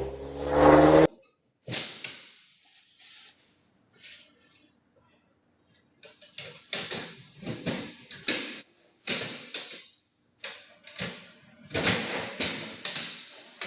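A loud pitched sound for about a second that cuts off abruptly, then irregular knocking and clattering, heaviest in the second half.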